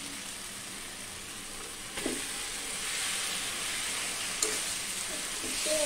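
Boiled goat tripe sizzling in hot oil and spice paste in a wok as it is tipped in and stirred with a spatula. There is a single knock about two seconds in, after which the sizzle grows louder.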